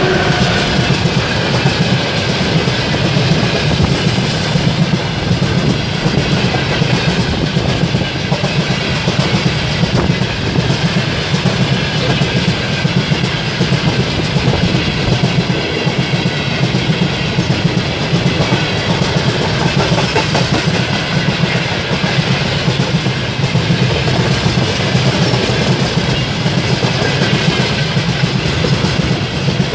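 Train passing close by, its wheels clattering steadily over the rails.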